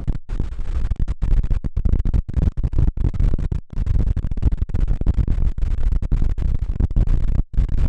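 Strong wind buffeting the microphone in a loud low rumble, broken up by many sudden brief dropouts where the sound cuts out for a split second.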